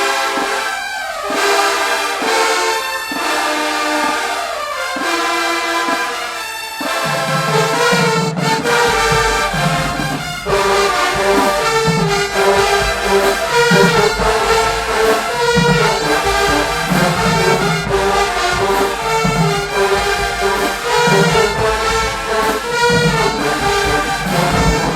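A college marching band's brass section playing, trumpets and trombones in held chords. About seven seconds in, the low brass and drums join and the sound fills out in the bass.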